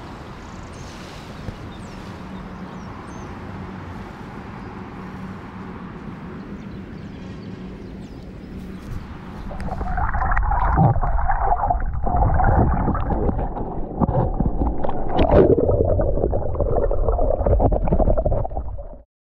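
A steady rushing hiss, then about ten seconds in a much louder, muffled rush of water sloshing and gurgling as the camera goes under the sea surface. It cuts off abruptly just before the end.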